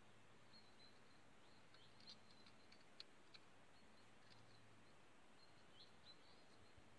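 Near silence outdoors, with faint, scattered high chirps of small birds.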